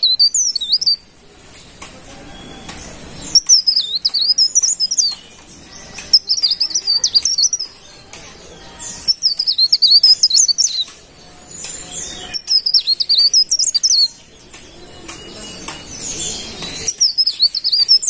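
A cikrak daun leaf warbler singing: high, rapid, twittering song phrases, each one to two seconds long, repeated about every three seconds with short pauses between them.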